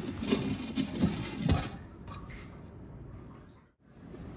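Tomato and spice masala simmering softly under a glass lid in a frying pan on low heat, a faint steady hiss. There is a single knock about a second and a half in.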